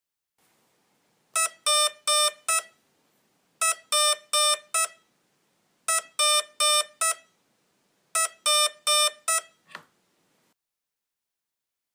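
Hitec Energy Sport brushless ESC sounding its programming tones: four short beeps in quick succession, repeated four times about two seconds apart. The pattern signals the low-voltage cut-off threshold set to Low, 2.8 V/50%.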